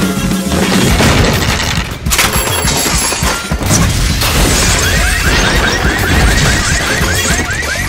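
Loud cartoon sound-effects din: dense crashing and banging with music underneath, then from about five seconds in a rapid run of short rising chirps, about four or five a second.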